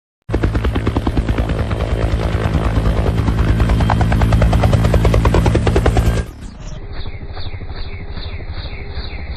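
Loud aircraft noise with a fast, even pulsing, growing slightly louder, then cut off abruptly about six seconds in. A quieter sound with a slower regular pulse follows.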